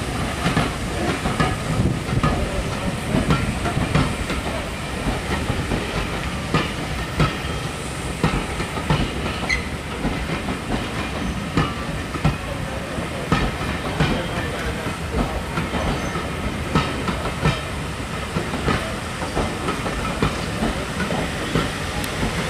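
Heritage passenger train's vintage coaches rolling past, a steady rumble of wheels on rail with a continual run of clicks and clacks as the wheels cross rail joints.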